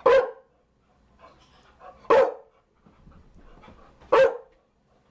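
Chow Chow dog barking: three loud single barks about two seconds apart, with fainter sounds in between.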